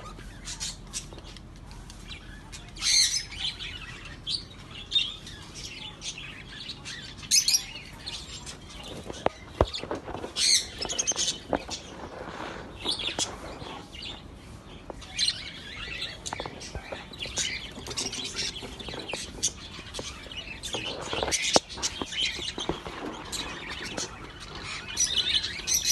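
Caged budgerigars chirping and chattering in short, irregular calls, with scattered sharp clicks among them.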